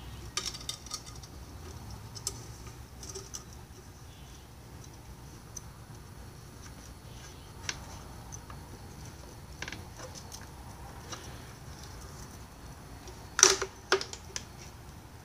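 Light plastic clicks and taps from handling the Ryobi CS26 trimmer's plastic fuel tank as it is fitted in place, with a sharper knock and a couple of quick clicks near the end.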